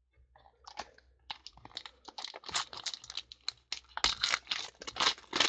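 Foil trading-card pack wrapper being torn open and crinkled by hand: a quick, irregular run of crackles and rustles that gets louder toward the end.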